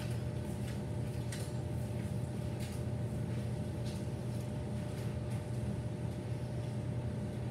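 A steady low hum from a running appliance, with a few faint clicks as a mini bagel is handled and pulled apart by hand.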